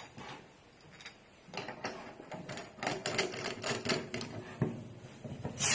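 Rapid uneven clicking and rattling as a gas cartridge holder is screwed onto a nitro cold brew coffee keg's charger. Right at the end a sudden loud hiss starts as the cartridge is pierced and gas rushes into the keg.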